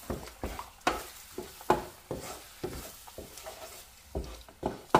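Wooden spatula scraping and knocking against a non-stick frying pan in irregular strokes, stirring eggs as they fry, over a light sizzle.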